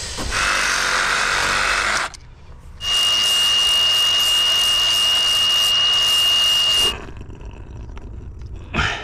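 A handheld power tool running in two bursts: one of about two seconds, then a longer one of about four seconds with a steady high whine. It stops near the end.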